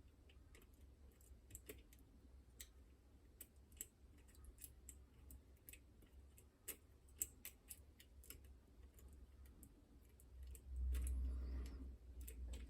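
Faint, irregular small metallic clicks of lock picks working the levers of a Chubb Detector lever lock. About ten and a half seconds in, a louder low rumble lasts roughly two seconds.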